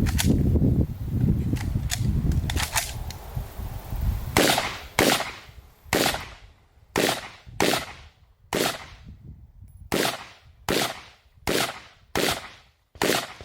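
A firearm fired in a steady string of single shots, about a dozen sharp cracks each a second or less apart, part of a timed shooting drill. Before the first shot there is a low rumble.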